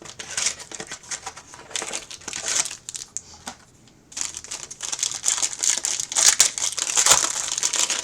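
Trading-card packaging being handled and opened: wrapper crinkling and tearing in three bouts, the longest and loudest in the second half.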